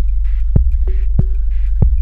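Minimal techno track: a kick drum strikes about every two-thirds of a second over a deep, steady bass drone, with hissy swells between the beats.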